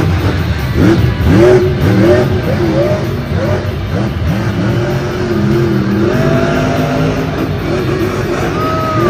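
Grave Digger monster truck's supercharged V8 engine revving hard, its pitch rising and falling over and over as the truck jumps and spins.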